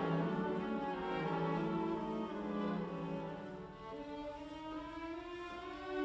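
Slow background music on bowed strings, violin and cello, playing long held notes that change every second or two.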